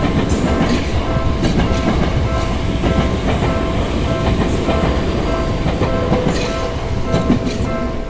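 An electric commuter train passing a level crossing, its wheels rumbling and clattering over the rail joints. The crossing's warning bell rings on steadily with repeated even tones.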